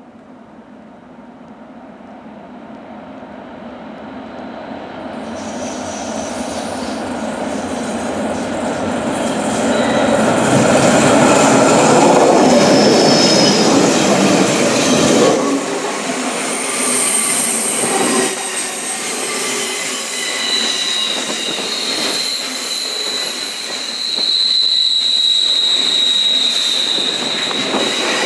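Double-headed electric freight train approaching and passing close by on a curve, growing steadily louder up to about halfway as the locomotives go past. The loaded car-transporter wagons then roll by with high-pitched, sustained wheel squeal from the curve.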